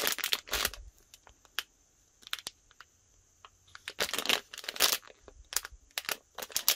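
Crinkling of a thin plastic blind-bag wrapper being handled and turned over in the hands, in several short crackly bursts with pauses between.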